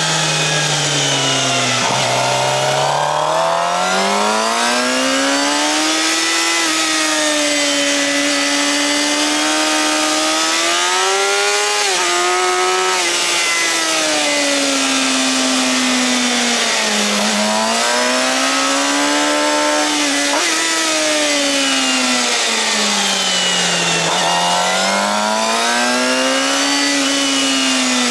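Suzuki GSX-R750's inline-four engine through a Yoshimura R-11 slip-on exhaust, revving up and dropping back several times as the bike accelerates out of corners and slows for the next, with a couple of quick drops in pitch at gear changes. A steady rush of wind runs underneath.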